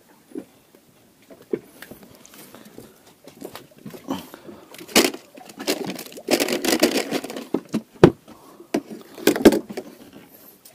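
Irregular knocks, clicks and rattling, sharpest and most frequent a little past the middle and again near the end.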